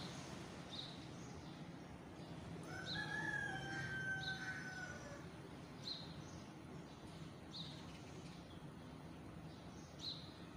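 A small bird gives short, high chirps every second or so over a steady low background hum. About three seconds in, a longer drawn-out tone sounds for about two seconds.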